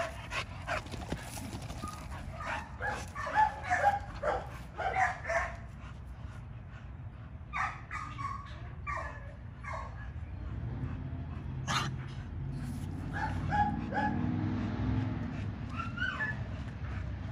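American bully dogs play-fighting, giving quick runs of short yipping barks in several bouts. A low steady hum comes up in the background about ten seconds in, and there is one sharp click near twelve seconds.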